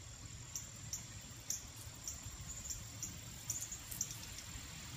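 Quiet yard ambience: a faint, steady high insect drone, with scattered soft clicks at irregular intervals as hens peck at the grass.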